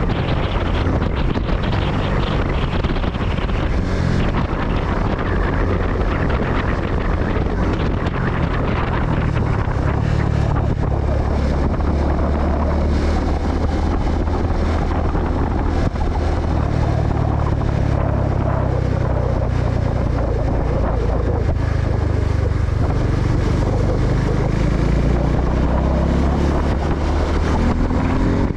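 Wind rushing over the microphone of a moving Suzuki Gixxer 250, with the bike's single-cylinder engine running steadily underneath. Near the end the engine's pitch starts to rise as it speeds up.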